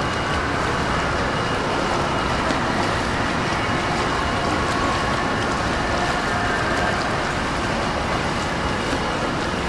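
Steady rushing wash of pool water churned by a swimmer's freestyle arm strokes and kick, even and unbroken, with no single splash standing out.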